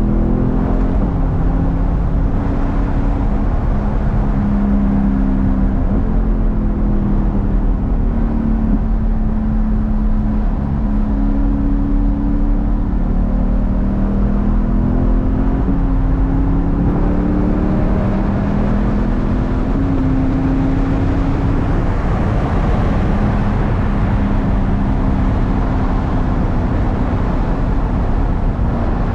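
C8 Corvette's V8 running through a Tap Speed aftermarket exhaust, its note slowly rising and falling as under way, over a steady low rumble.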